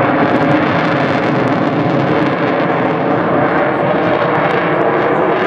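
Loud, steady jet noise from an F-22 Raptor's two Pratt & Whitney F119 turbofans as the fighter flies its display.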